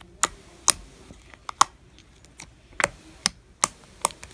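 Fluffy slime being handled, giving about ten sharp little clicks and pops at irregular intervals.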